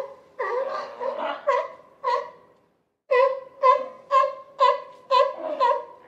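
Sea lions calling: a series of short, loud, pitched barks. They overlap for the first two seconds, then stop briefly, then come about two a second.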